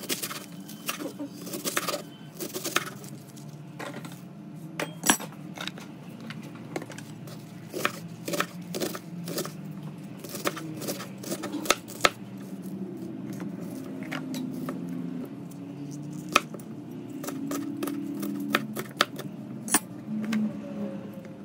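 Chef's knife chopping savoy cabbage on a plastic cutting board: sharp, irregular knocks of the blade striking the board, several a second in the first half and sparser later. A steady low hum runs underneath.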